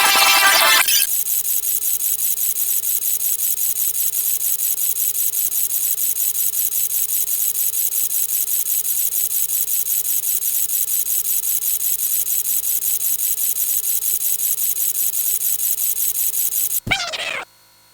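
Alarm bell ringing fast and steadily, about seven strikes a second, cutting off suddenly near the end. A short, falling cat meow follows it.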